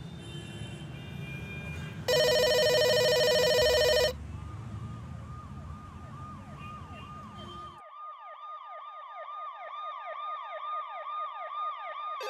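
A siren wailing in rapid, repeated falling sweeps, starting about four seconds in and carrying on after a low street rumble cuts off suddenly. Just before the siren, a loud, steady electronic tone sounds for about two seconds.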